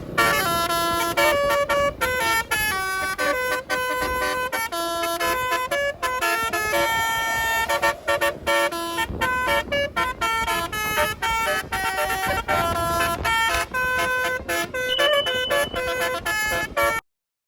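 Bus 'telolet basuri' multi-note musical horn playing a fast melody, the notes stepping up and down in quick succession. It cuts off suddenly near the end.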